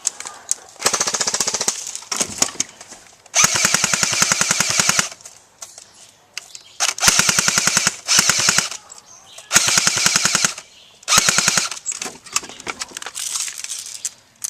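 Airsoft guns firing full-auto in repeated rapid bursts, about seven of them, each lasting half a second to a second and a half, with short pauses in between. The longest burst comes about three and a half seconds in.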